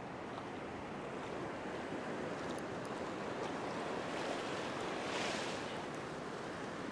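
Ocean surf breaking and washing up over the sand, with a wash of foam swelling louder about five seconds in.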